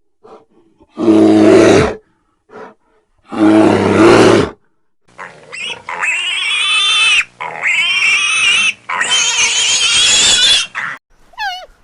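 Animal calls: two short loud low calls, then three long wavering high-pitched cries, each lasting over a second.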